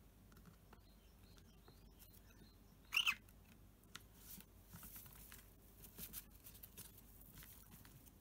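A cockatiel gives one short chirp about three seconds in, followed by faint scratchy clicks and rustles.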